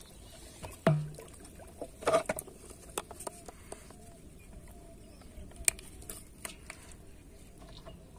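Handling noise in a metal basin: scattered knocks and clicks as a plastic mug and bottles are moved about. The loudest is a sharp knock about a second in with a brief low ring after it, then a quick cluster of knocks and a few lighter clicks and rustles.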